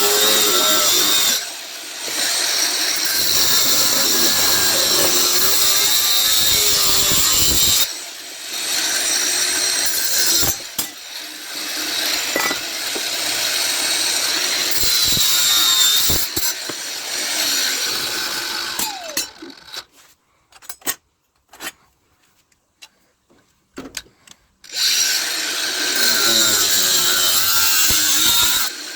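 A power tool cutting through brass scrap in long, steady runs with a couple of short breaks. It stops for about five seconds some twenty seconds in, leaving only a few clicks and knocks, then starts cutting again.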